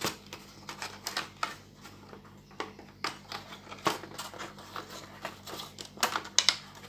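Irregular light clicks and knocks of a circuit board being handled and shifted against the plastic rear housing of a TV monitor, with a cluster of louder knocks a little after six seconds in.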